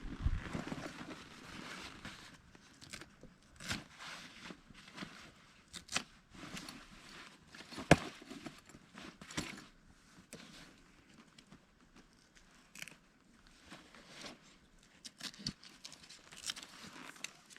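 Rustling and scattered clicks from a canvas tent being taken down and its poles handled, with one sharp knock about eight seconds in.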